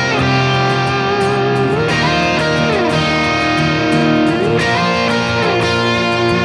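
Instrumental intro of a country-rock song: an electric guitar riff with bending notes over a steady beat.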